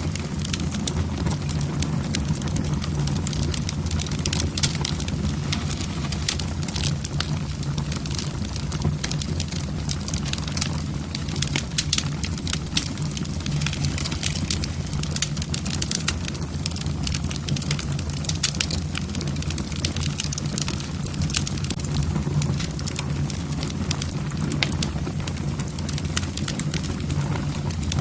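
Wood fire burning in a fireplace: a steady low rumble of the flames with frequent sharp crackles and pops from the logs.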